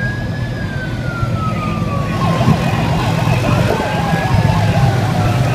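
Several police escort sirens sound at once: slow wails rise and fall, and a fast yelp joins about two seconds in. Underneath is the low, steady rumble of the escort's motorcycle and vehicle engines.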